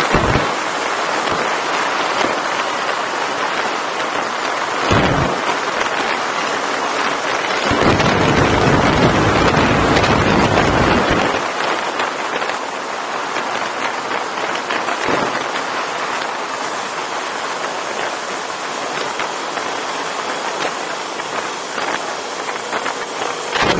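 Wind rushing over the microphone of a motorcycle-mounted camera while riding at speed, with heavier low buffeting gusts about five seconds in and again for a few seconds near the middle. The motorcycle's engine is largely buried under the wind.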